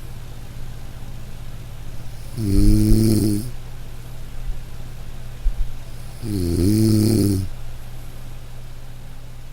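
A person snoring loudly: two long, pitched snores about four seconds apart, over a steady low hum.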